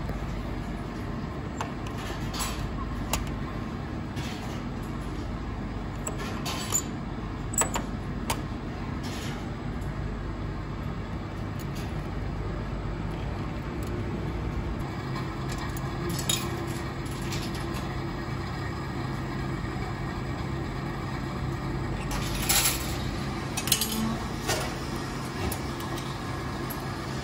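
Steady low rumble of traffic and machinery, with scattered sharp metallic clicks and clunks from the old vending machines' hinged delivery doors and buttons being handled, several of them close together near the end.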